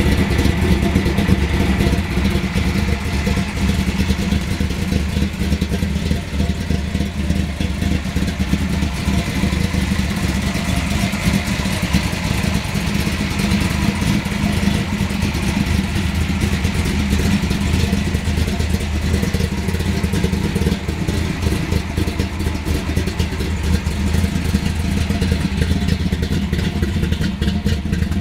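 Chevrolet 496 cubic-inch big-block V8 idling steadily through a 3-inch exhaust.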